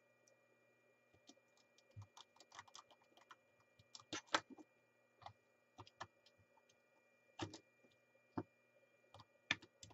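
Scattered light clicks and taps from handling a small plastic radio: a small screwdriver turning the screws in its battery compartment, then the screwdriver set down and the case handled and turned over. The sharpest taps come about four seconds in.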